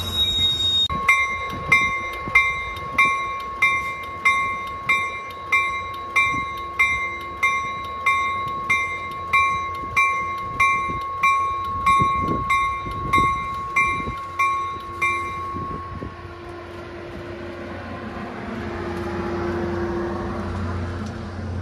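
A Caltrain bell rings steadily at about three strikes every two seconds, then stops about fifteen seconds in. A low train rumble follows and swells near the end.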